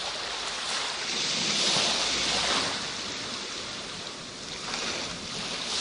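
Surf breaking and washing up a sandy beach: a steady rush that swells about two seconds in, eases off, and builds again near the end.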